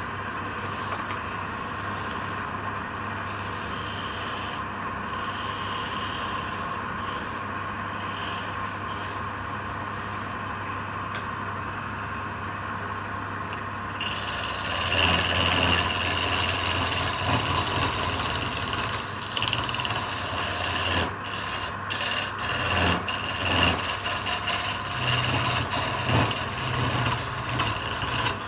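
Power tool working wood: a steady motor hum for the first half, then louder rubbing and scraping from about halfway in, rising and falling irregularly.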